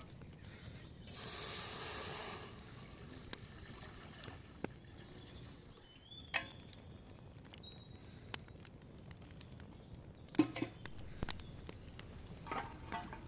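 Water poured from an aluminium jug splashes into a large aluminium pot for about a second and a half, starting about a second in. Birds chirp a few times in the middle, and near the end come a few sharp knocks, the loudest of them about ten seconds in.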